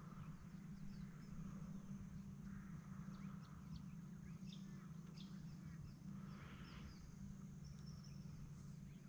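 Faint bird calls, many short scattered chirps, over a steady low hum.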